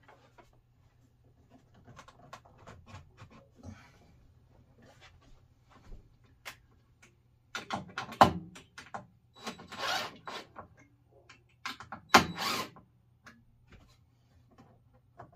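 Wooden boards and parts being handled: scattered knocks, clicks and rubbing scrapes, with two loud wooden knocks about eight and twelve seconds in and a stretch of scraping around ten seconds.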